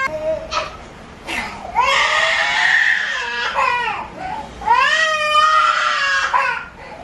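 Toddler crying hard in a tantrum: two long wailing cries with a short gasp for breath between them, after a brief fainter cry at the start.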